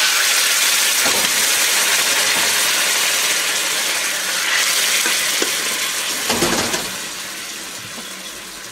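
Liquid ladled into a hot wok, hissing and sizzling loudly as it flashes to steam. It starts suddenly and dies down over the last couple of seconds.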